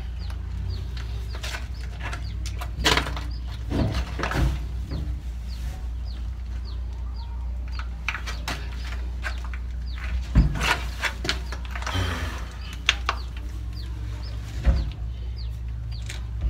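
PVC pipe and fittings knocking and clattering as they are handled and dry-fitted without glue. Repeated short, high bird chirps go on throughout, over a steady low hum.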